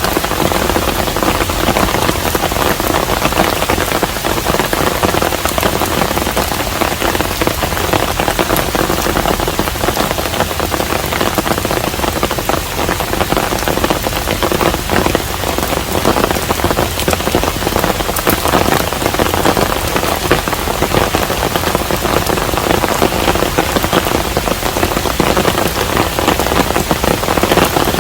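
Steady rain falling on a hanok, a traditional Korean house: a dense, even patter of countless drops that holds the same level throughout.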